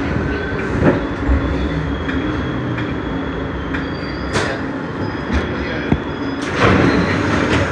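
Inside an R62A subway car running along the track: a steady rumble and hum, with sharp clanks about a second in and again past the middle, and a louder rattling clatter near the end.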